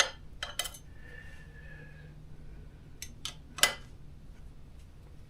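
A few light metallic clinks and clicks from tools and bolts being worked on the scooter frame while fastening it, the loudest a little over three and a half seconds in.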